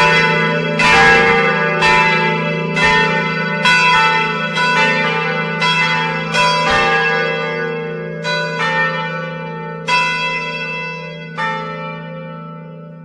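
Swinging bronze church bells in the tower, heard close up, striking about once a second. The strokes grow fainter and more irregular as the ringing dies away. The last stroke comes near the end, and the bells' low hum carries on after it.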